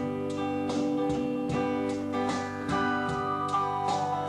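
Guitar music between sung lines: chords strummed evenly, a little over two strokes a second, ringing on under each stroke.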